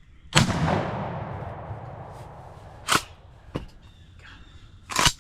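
A single blast from a 12-gauge pump shotgun firing a 3.5-inch magnum turkey load, ringing out and fading over about a second and a half. Two shorter, quieter sharp clacks follow, about two seconds apart.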